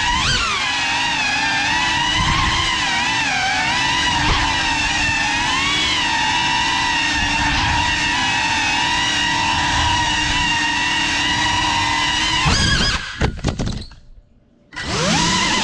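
Cinelog35 cinewhoop's brushless motors and ducted propellers whining, the pitch rising and falling with the throttle. Near the end the whine breaks up and drops almost to silence for about a second, then winds back up.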